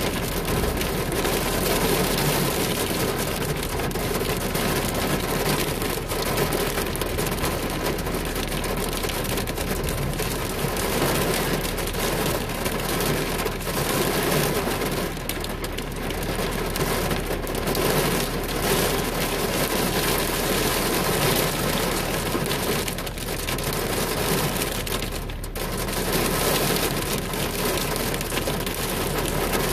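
Steady, heavy rain pelting a car's windshield and roof, heard from inside the car.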